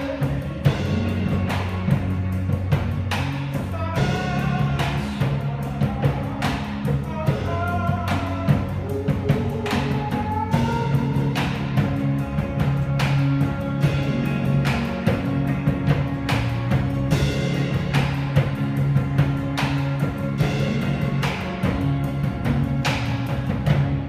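Live rock band playing: electric guitar, bass guitar and drums, with a second drummer on standing drums, over a steady drum beat of about two hits a second.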